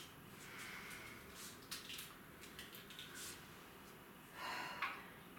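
Faint clicks and taps as the buttons of a compact stereo system are pressed, a few spread over the first three seconds, with a short rushing noise a little over four seconds in.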